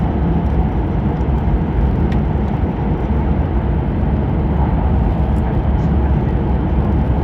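E5-series Shinkansen running at speed, heard inside the passenger cabin as a steady, deep rumble.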